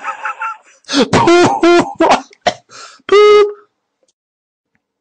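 A voice making wordless silly noises: a raspy throat sound, a few warbling squeals, a click, and a held squeaky note about three seconds in, then silence.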